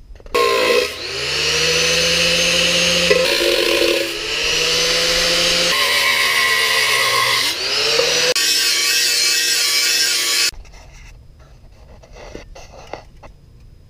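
Handheld angle grinder with its disc working a sheet-metal adapter box: a loud, steady grinding with a high whine, in several runs that each begin with the whine rising as the disc spins up. It cuts off suddenly about ten seconds in, and a few faint clicks and knocks of handling follow.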